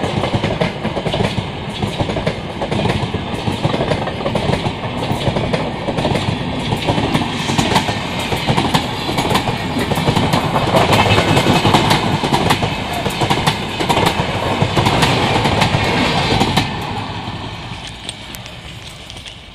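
Passenger coaches of an express train rolling past, their wheels clattering rhythmically over the rail joints. The sound fades over the last few seconds as the end of the train pulls away.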